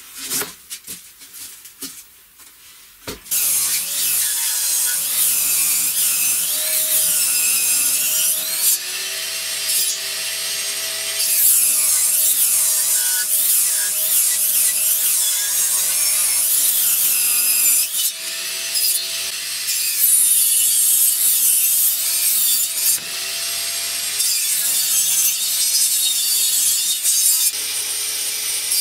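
A few wooden knocks, then, about three seconds in, a benchtop table saw starts ripping a long wooden board lengthwise. The loud, steady whine of the saw dips and recovers as the blade takes the load of the cut.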